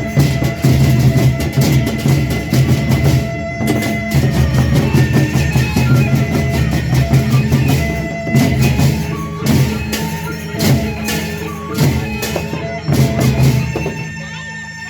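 Percussion-led ensemble playing a tabuh, an opening drum variation: repeated drum strokes over sustained pitched instrument tones, growing quieter in the last second.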